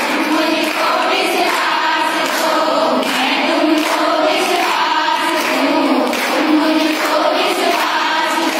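A group of women singing together in unison, voices holding long notes.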